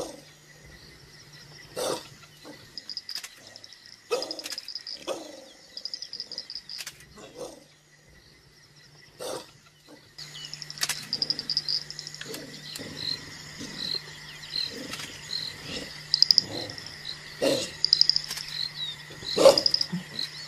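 Short wild animal calls repeating every second or so, over a steady chorus of insects and frogs chirping, which jumps louder about halfway through.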